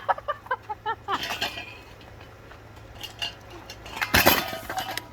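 A ceiling fan being smashed: a quick run of clattering, clinking knocks from its parts in the first second and a half, then one loud crash about four seconds in.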